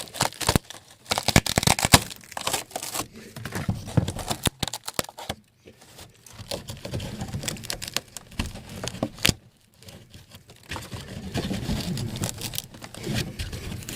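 Irregular crinkling and rustling with scattered clicks and knocks, as of materials being handled during the repair work.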